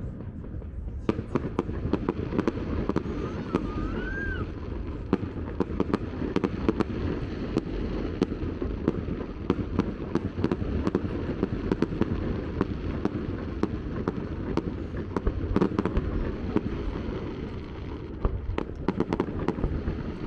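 Fireworks display: a dense, continuous crackling of small pops over a steady low rumble of bursts, with a short rising whistle about three seconds in.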